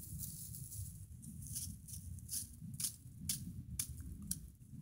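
Dry grass stems rustling and crackling in the hands as a bundle of tinder is handled, in short irregular crisp clicks, over a steady low rumble.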